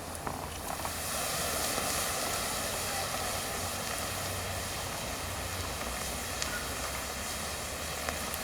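Wood-and-charcoal bonfire burning with a steady rushing noise, with a few sharp crackles.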